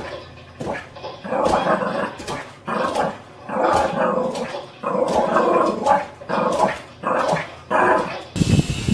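A dog barking in a string of short bursts, roughly one a second.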